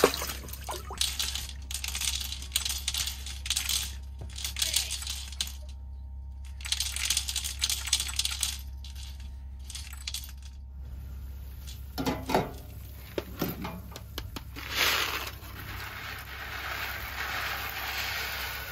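Ice chips and slush clinking and rattling in an ice-fishing hole as a hand stirs them, in a run of quick clinks over the first ten seconds. Near the end, dry macaroni pours into a pot of boiling water with a steady hiss.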